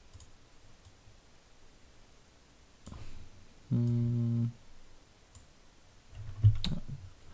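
Faint computer mouse clicks, and about halfway through a short closed-mouth hum: one steady note lasting under a second.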